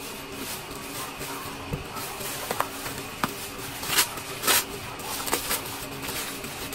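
Plastic shipping pouch and bubble wrap rustling and crinkling as the pouch is cut with scissors and pulled open, with scattered sharp crackles, the loudest a little past the middle.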